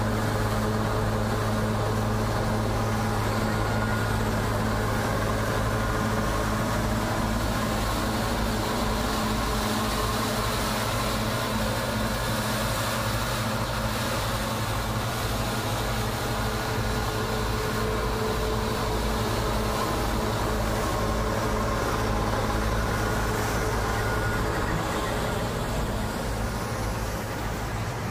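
Bizon Z056 combine harvester running while harvesting: its six-cylinder diesel engine gives a steady low hum, mixed with the noise of the working threshing and cutting gear.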